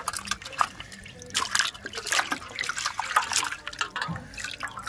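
Chicken feet being washed by hand in a steel bowl of turmeric water: irregular sloshing, splashing and dripping as the hands rub and lift them.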